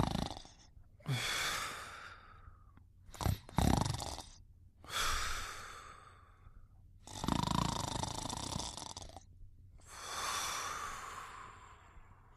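Slow, steady snoring of a sleeper: long noisy breaths about every two to three seconds, with a couple of short sharp snores about three seconds in.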